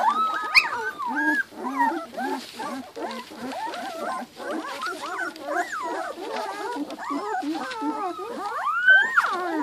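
A litter of two-week-old Giant Schnauzer puppies whining and crying without a break, many high cries overlapping one another. About nine seconds in, one louder cry rises and falls.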